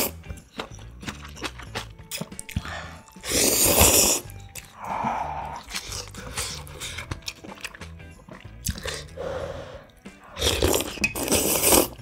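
Noodles being slurped loudly from a bowl of spicy instant ramyun, twice: once about three seconds in and again near the end. Between the slurps come wet chewing and small mouth clicks.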